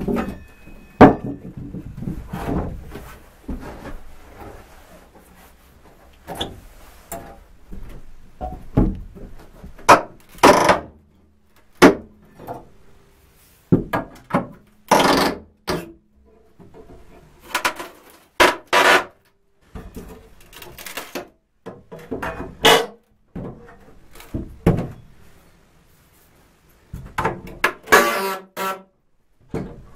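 Old wooden attic floorboards being pried up with a steel crowbar: irregular knocks, cracks and short creaks of wood and nails giving way, with quiet gaps between the strokes.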